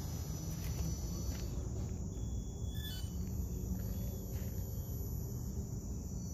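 Steady high-pitched insect chirring over a constant low rumble.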